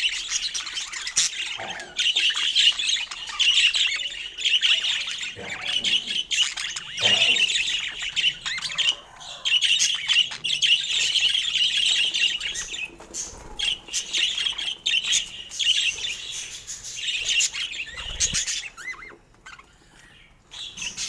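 Budgerigars chattering and warbling in a dense, continuous stream of quick chirps with short pauses, dying away near the end.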